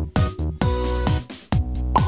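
Upbeat electronic background music with a steady kick-drum beat, about two beats a second, and a short bright blip at the very end.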